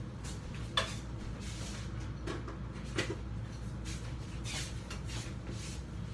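Quiet kitchen with a low steady hum and a few light knocks and clicks of things being handled, one about a second in and another at three seconds, then a soft rustling toward the end.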